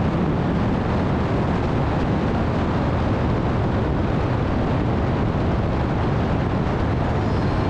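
Harley-Davidson motorcycle riding at road speed: the engine running steadily under a constant rush of wind over the microphone.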